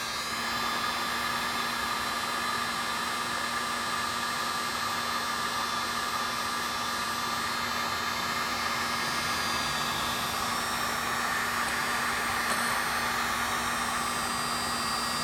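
Electric heat gun running on its low setting: a steady blowing hiss with a low fan hum and a faint whine under it.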